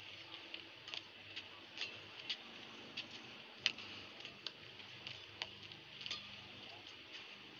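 Badminton rackets striking a feather shuttlecock in a rally: a series of sharp cracks about once every half second to a second, the sharpest about three and a half seconds in.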